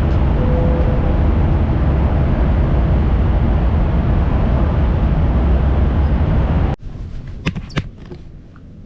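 Loud, steady wind buffeting and engine rumble of a moving motorcycle, cut off abruptly near the end. A much quieter stretch follows, with a few sharp clicks.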